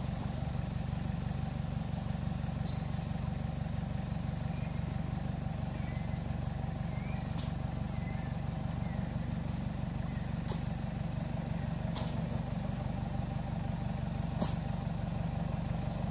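An engine running steadily, with four sharp clicks or knocks spaced a few seconds apart in the second half and a few faint high chirps in the first half.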